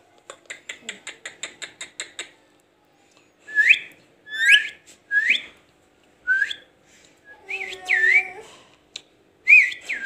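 Young Indian ringneck parakeet whistling: several short chirps that sweep sharply upward, then a longer wavering one and more near the end. Before them comes a quick run of about a dozen clicks.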